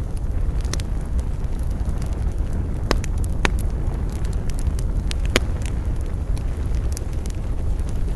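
Campfire burning and crackling, with sharp pops every so often over a steady low rumble.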